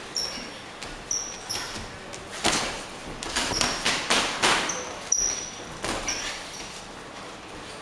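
Boxing sparring: irregular thuds of gloved punches landing, mixed with short high squeaks of boxing shoes on the ring canvas.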